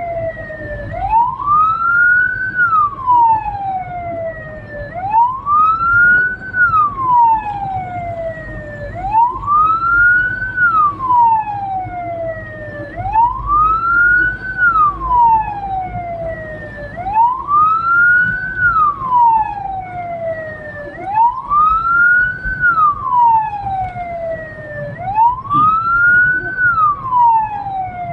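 Hearse siren wailing in a slow repeating cycle, about one wail every four seconds, each rising quickly and then falling more slowly, over low vehicle and road noise.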